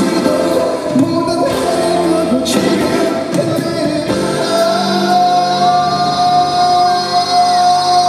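Male vocalist singing live into a handheld microphone over musical accompaniment, with a long held note in the second half.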